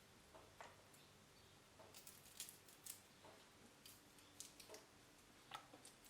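Faint, scattered small clicks and light scrapes of food being handled and prepped at a kitchen counter, irregularly spaced, over a quiet room hiss.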